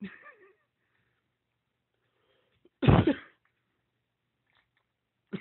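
A person coughs once, loudly, about three seconds in.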